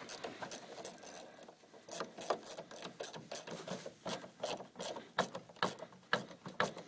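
Irregular light metallic clicking of a ratchet mechanism during fitting of the electric scooter's pedals, several clicks a second.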